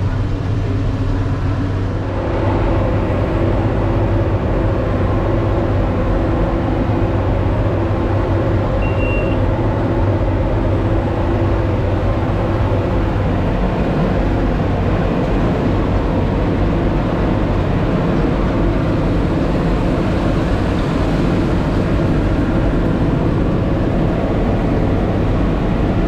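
Tractor engine running steadily, heard from inside the cab as the tractor drives across the stubble. A brief high beep sounds about nine seconds in.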